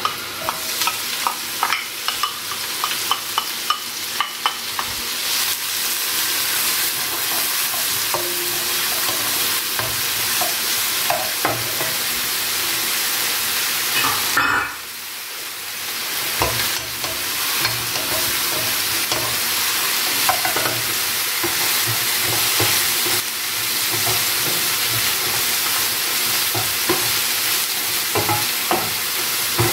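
Chopped onions and sliced mushrooms sizzling in hot oil, a steady hiss, with wooden spoons clicking and scraping against the pot and frying pan as they are stirred. The clicks come thickest just after the onions go in and again near the end, and the sizzle drops briefly about halfway through.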